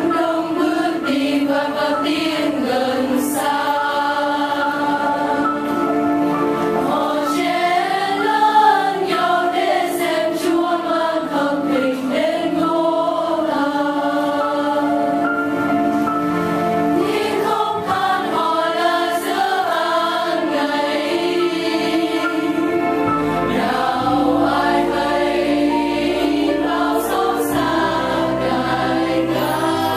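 Mixed choir singing a Vietnamese worship song over keyboard and piano accompaniment; a bass line comes in about three quarters of the way through.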